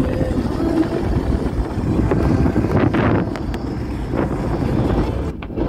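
Steady road and wind noise of a vehicle moving at highway speed, heard from inside, with a few brief sharper noises near the middle.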